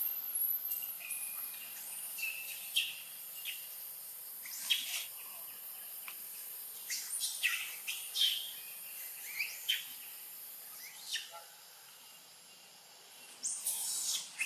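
Forest ambience: a high, steady insect drone that fades out about eleven seconds in, with scattered short, high-pitched chirps and calls throughout and a louder cluster of them near the end.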